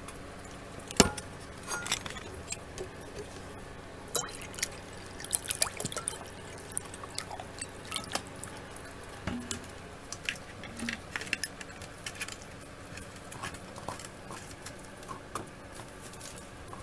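A dog lapping water from a bowl: irregular wet splashes and clicks, with one sharp knock about a second in.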